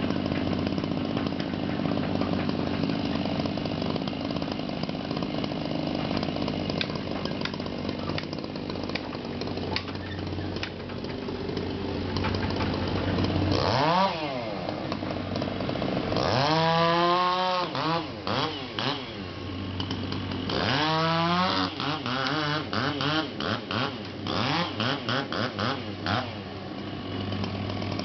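Chainsaw running over the steady hum of an excavator's engine. In the second half the saw revs up and down in several long swells, then stutters on and off for a few seconds near the end.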